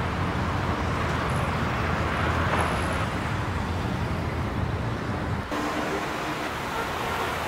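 City street traffic noise: a steady rumble of cars. The sound changes abruptly about five and a half seconds in, as one street recording cuts to another.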